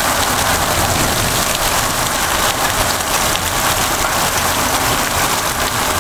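Heavy monsoon downpour, a steady dense hiss of rain pouring down and splashing on surfaces.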